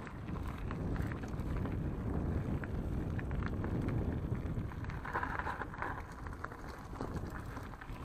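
Mountain bike rolling along a gravel path: a steady rumble of tyres over loose stones with wind on the microphone, scattered small clicks and rattles, and a brief higher rush about five seconds in.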